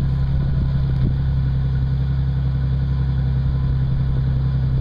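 2008 Ford Mustang's 4.0-litre V6 idling steadily through a Flowmaster American Thunder exhaust.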